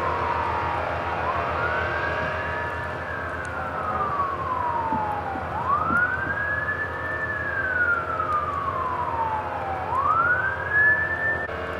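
Emergency vehicle siren in a slow wail, rising and falling roughly every four seconds, cutting off suddenly near the end, over a steady hum.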